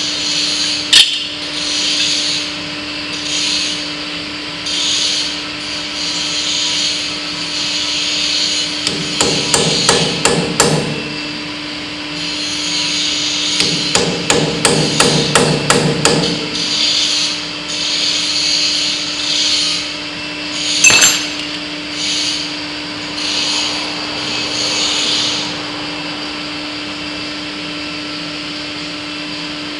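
Hammer tapping on steel at the end of a loader bucket's hydraulic cylinder, in two quick runs of several blows a second, with single sharper knocks about a second in and about 21 seconds in. A scraping stroke repeats every second or so, and a steady hum runs underneath.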